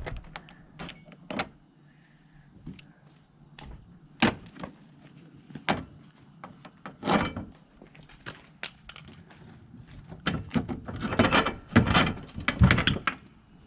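Metal tools and parts clinking, tapping and knocking against one another. One sharp strike about three and a half seconds in leaves a brief ringing tone, and a denser burst of rattling comes near the end.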